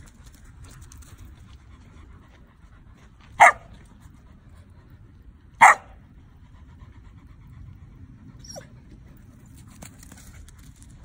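Samoyed barking during rough play: two short, loud barks about two seconds apart, with a fainter falling yip later.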